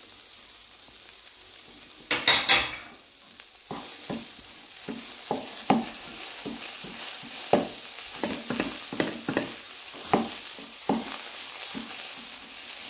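Wooden spatula stirring and scraping a chicken-and-cheese filling in a nonstick wok, over a steady sizzle. A burst of loud clatter about two seconds in, then spatula strokes against the pan every half second to a second.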